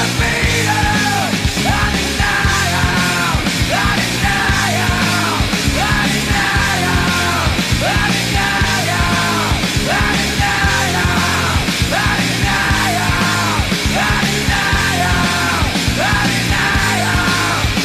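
Loud rock music with shouted vocals over a steady driving beat.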